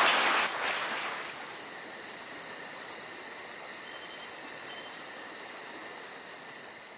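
Applause dying away in the first second, then crickets chirping in a fast, even pulse over a steady high trill, slowly fading.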